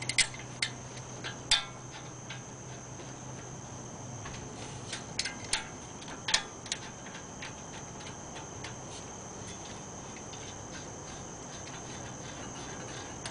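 Front brake caliper of a Lexus SC430 being slid over new pads onto its bracket and lined up for its bolts by hand: scattered metal clicks and knocks, several in the first seven seconds, then only faint ticks.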